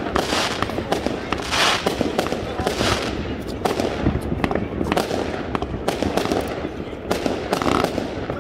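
New Year's fireworks going off in rapid succession: a dense, continuous crackle of bangs and cracks, with louder bursts every second or two.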